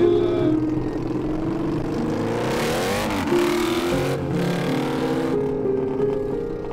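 ATV (quad bike) engine revving as it accelerates past and away, loudest from about two to four seconds in, over background music.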